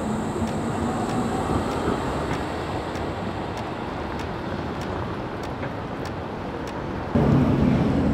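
Electric trams and street traffic: a steady rolling rumble of a tram running on street rails, with faint regular ticks. About seven seconds in the sound abruptly gets louder and a low steady hum comes in.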